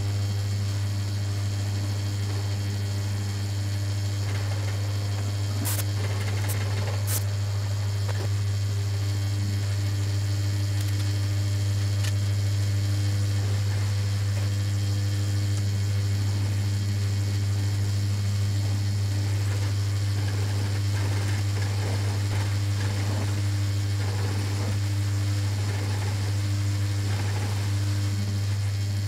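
Drill press running with a straight router bit in its chuck, milling a groove along a wooden strip: a steady motor hum with the crackle of the bit cutting wood, heavier in the second half, and a few sharp clicks early on.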